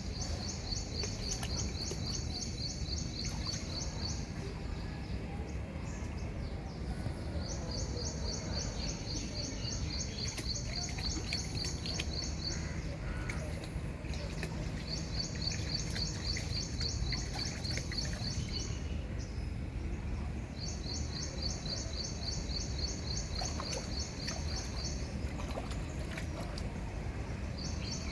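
Steady rain noise, with a high, rapid chirping trill that comes in bouts of three to five seconds and repeats five times.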